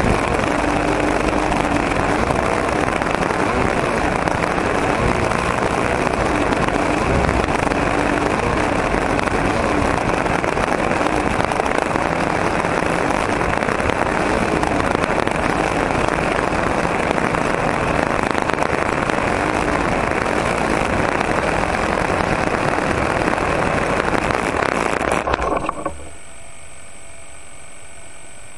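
Model airplane's O.S. 40 glow engine running steadily, heard close up through a camera fixed under the fuselage. About 25 seconds in it cuts off suddenly, leaving only a faint steady hum.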